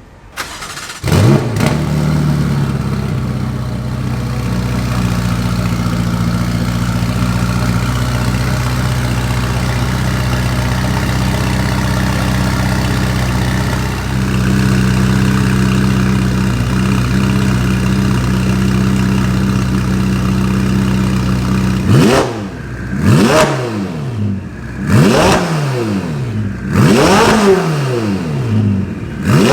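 Ferrari 488 Pista's twin-turbo V8 with an iPE titanium exhaust starting up, flaring about a second in, then idling steadily. Near the end it is blipped through a series of quick revs, each rising sharply and dropping back.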